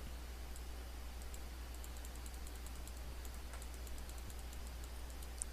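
Faint, quick clicks of a computer keyboard and mouse in short runs, over a steady low electrical hum.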